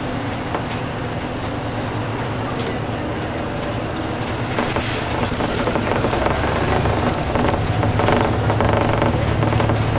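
City bus engine and running gear heard from inside the passenger cabin while the bus is under way: a steady low rumble that grows louder about halfway through.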